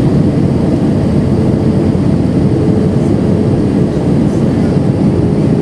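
Steady cabin noise inside an Airbus A319 on descent: jet engine and airflow rumble heard from a seat over the wing, with a faint steady hum.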